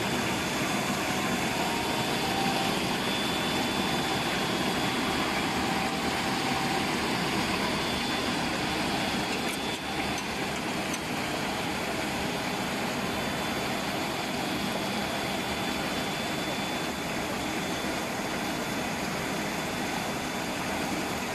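CNC rotary-table surface grinder running steadily, its wheel surface-grinding a table of steel scissor blades under flooding coolant: an even mechanical grinding noise with a faint high steady tone. A few faint metal clicks come about halfway through as loose blades are handled.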